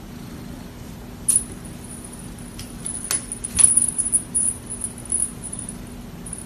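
A small bell on a dangling cat toy jingling as a kitten bats at it: a sharp tap about a second in, then high, thin, flickering jingles and a few more taps that die away near the end, over a low steady hum.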